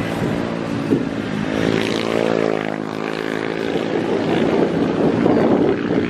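An engine drones past, its even hum swelling about a second and a half in, bending up then down in pitch, and fading out around the fourth second.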